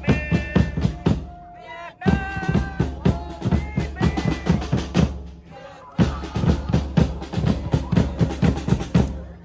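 Background music: a song with singing over a steady drum beat, with brief breaks in the beat.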